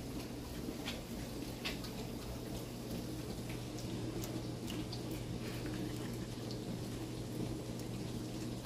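Steady low room hum with a handful of faint clicks and taps from two dogs shifting about on a wooden floor and working their mouths over a treat.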